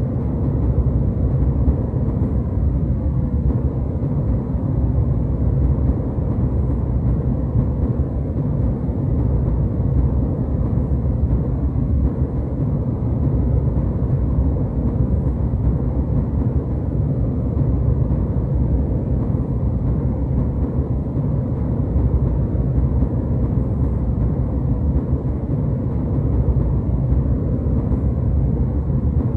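Jet airliner cabin noise in flight: a steady, deep rumble of engines and airflow that does not change.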